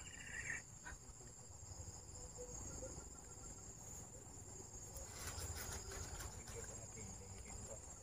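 Faint, steady chorus of insects: a continuous high-pitched trill, with a few faint crackles about five seconds in.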